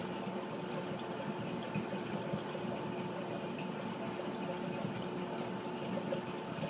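Reef aquarium running: a steady rush of circulating water with a faint steady hum from its pumps.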